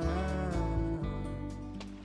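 Background music: an acoustic guitar song, fading out near the end.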